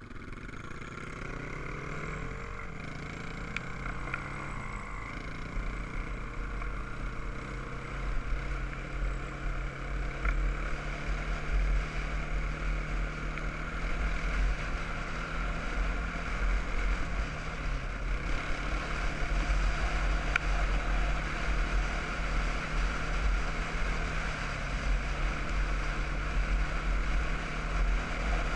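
Single-cylinder quad bike engine pulling away, its pitch rising through the first few seconds, then running steadily at cruising speed with a brief easing of the throttle a little past halfway. A low wind rumble on the microphone runs under it.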